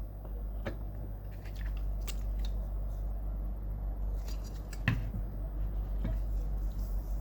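Small clicks and scrapes of tools and plastic parts being handled on the printer's photodrum drive gearbox during a gear swap, with one sharper click about five seconds in, over a steady low hum.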